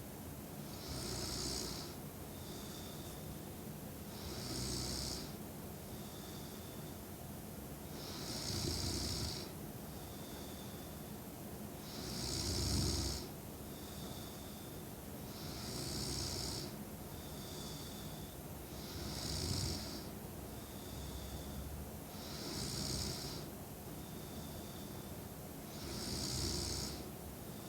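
A sleeping woman snoring steadily, about eight snores each roughly three and a half seconds apart, each with a short faint high whistle between snores.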